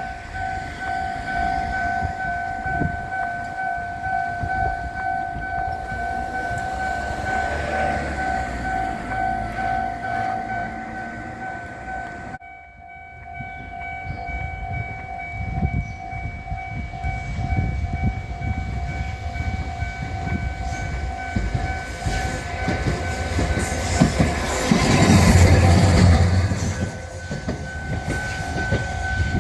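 Japanese level-crossing warning bell ringing with a steady pulsing electronic tone while a train rumbles over the crossing. The sound breaks off sharply about twelve seconds in and the bell picks up again. The loudest part is a heavy low rumble near the end as the train passes.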